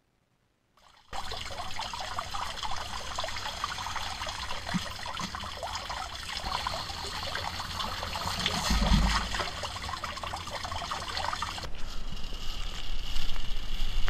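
Runoff water trickling and splashing into a street storm drain grate close by, starting about a second in after a moment of silence.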